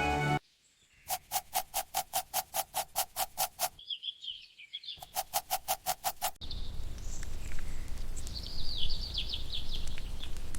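Birds chirping over a steady outdoor background. Before it, a fast, even pulsing sound repeats about seven times a second in two runs with a short break between them.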